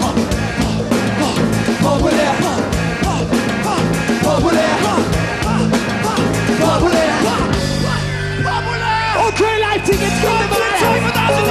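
Live hip-hop band music with a driving drum beat and shouted vocals. The drums drop out for a couple of seconds about eight seconds in, leaving a held bass note, and come back near the end.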